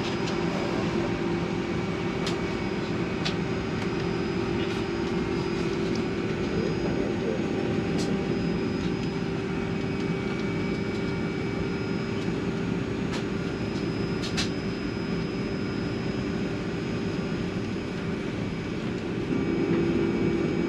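Steady cabin hum inside a Boeing 757-200 on the ground, with a constant low tone under a rushing noise and a few light clicks. The hum grows louder near the end.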